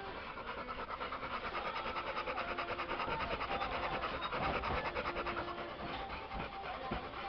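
Golden retriever panting close to the microphone: rapid, even breaths in and out.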